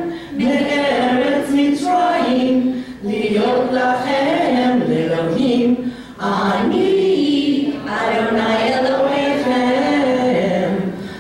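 Congregation singing a prayer together, a chanted melody in phrases with short pauses for breath between them.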